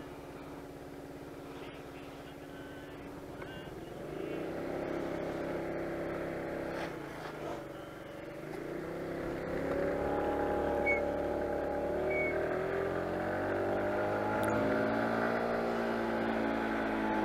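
Motor scooter's engine pulling away under throttle: its note climbs in pitch about four seconds in, drops back a little near eight seconds, then climbs again and holds at a higher, steady pitch as the scooter gathers speed.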